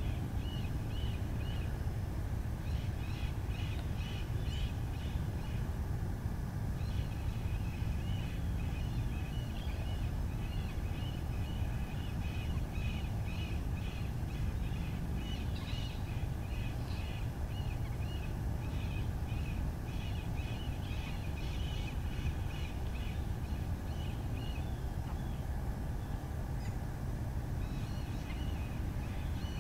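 Outdoor ambience: a steady low rumble under rapid, repeated high chirping calls from wildlife, which go on with a couple of brief pauses.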